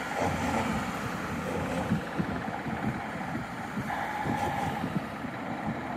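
Cars and vans driving past on a road bridge, a steady traffic hum that swells a little about four seconds in, with a gusty low rumble of wind on the microphone.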